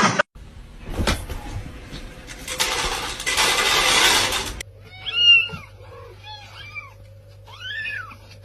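A cat meowing three times in high, arching calls, the first the loudest. Before the meows there is a sharp knock and a couple of seconds of loud hiss-like noise.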